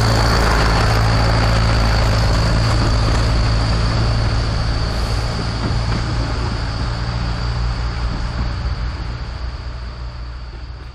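Narrow-gauge forest railway train passing close by: the carriages rolling along the track over a steady diesel engine drone, with a thin high squeal. The sound grows fainter from about halfway and fades out at the end.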